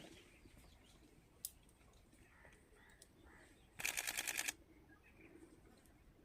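Camera shutter firing in a rapid burst of about ten clicks, lasting under a second, about four seconds in. A single sharp click comes a second and a half in.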